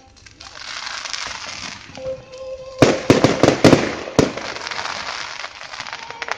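Fireworks going off: a dense crackling shower, then a quick run of about six loud bangs about three to four seconds in, with the crackling carrying on after them.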